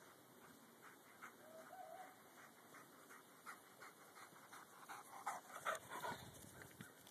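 English pointers panting as they run up close, a faint string of short quick breaths about two a second, loudest a little after the middle.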